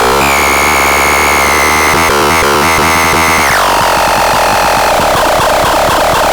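Loud electronic dance music in a dubstep style. A held, buzzy synthesizer tone with a steady bass underneath drops sharply in pitch about halfway through.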